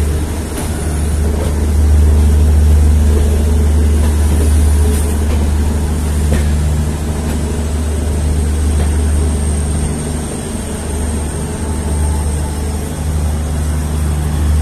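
Diesel locomotive engine running with a steady, loud low drone, heard from the open doorway of a passenger coach.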